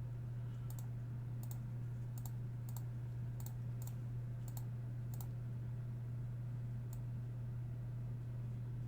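A run of light, sharp clicks, about nine of them at uneven intervals, over a steady low electrical hum.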